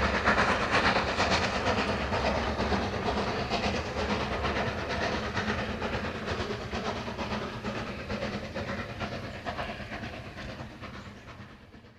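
War Department Austerity 2-10-0 steam locomotive working with its train, steam and running noise, fading slowly away to nothing by the end.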